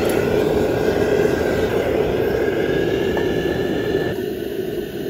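Gas burner of a small workshop forge running with a steady rushing roar, starting suddenly and easing slightly about four seconds in.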